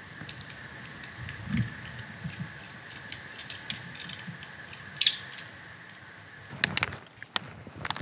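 Small birds giving short, high chirps and one sharp call about five seconds in, with scattered light ticks. Near the end comes a quick run of crunching and cracking.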